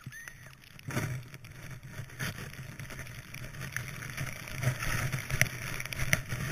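Skis swishing through deep powder snow, heard from the skier's own helmet, with wind rushing over the microphone. The swishing comes in uneven surges, with a loud one about a second in.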